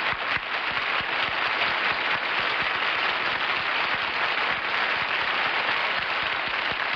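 Studio audience applauding steadily, heard through the thin, muffled sound of an old television broadcast recording.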